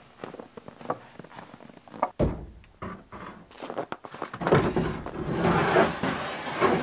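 Footsteps crunching in snow. After a cut, a long scraping slide as a plywood sheet is pushed into a pickup's bed; the panel is cut a bit too wide for the space, so it drags and catches.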